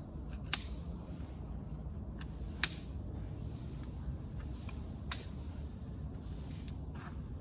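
Three sharp clicks or taps, about half a second, two and a half and five seconds in, over a low steady background rumble.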